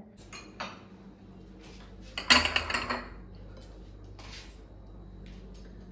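Glass bowls and kitchenware clinking as they are handled on a kitchen counter: a few separate clinks, the loudest one, about two and a half seconds in, ringing briefly.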